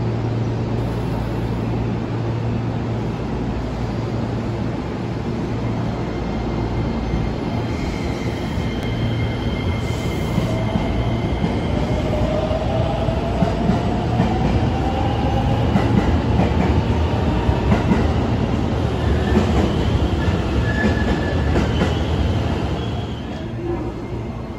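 JR West commuter electric train pulling out of the platform: a steady low hum at first, then from about ten seconds in a motor whine rising in pitch as it gathers speed, over wheel-and-rail rumble that grows louder.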